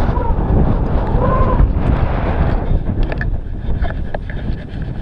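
Wind buffeting the action-camera microphone at skiing speed, mixed with skis hissing and scraping over packed snow. About three seconds in the rush eases and short crackling scrapes of the skis on chopped-up snow come through.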